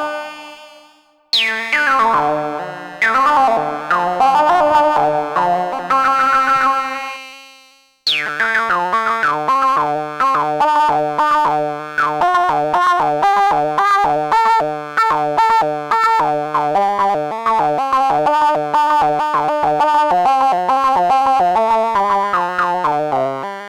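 Arturia MiniBrute 2 analog synthesizer playing: a note with a falling filter sweep a little after the start and another about three seconds in, fading out, then from about eight seconds a fast repeating pattern of short notes that dies away near the end.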